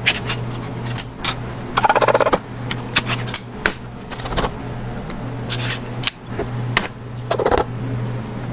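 Metal pull-tab tins of luncheon meat being handled and opened on a wooden board: scattered clicks and clinks of the tins, with two short rasping rattles, about two seconds in and near the end. A steady low hum runs underneath.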